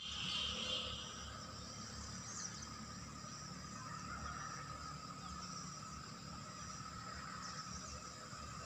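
Faint outdoor morning ambience: insects hum steadily in a high and a middle pitch, with a few short chirps about two seconds in and again near the end. A low rumble runs underneath.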